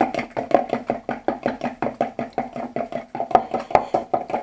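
A metal spoon whisking beaten eggs and milk in a plastic jug, knocking against the jug's sides in a quick, even rhythm of about five strokes a second.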